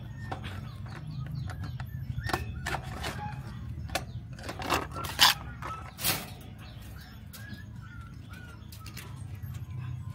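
Wire-mesh cage rattling and clinking as a hand grips and works the wire front, a string of irregular clicks and clanks with two louder knocks about five and six seconds in. Faint short high chirps sound now and then underneath.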